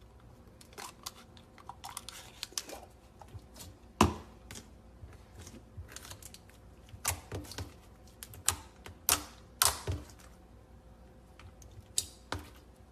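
Slime being pressed and pulled by hand, giving irregular sharp clicks, the loudest about four seconds in and several more bunched a few seconds later.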